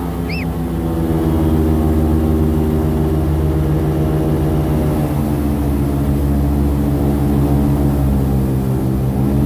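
Airboat's engine and propeller running steadily underway, a loud steady drone whose pitch shifts slightly about five seconds in. A short high chirp sounds just after the start.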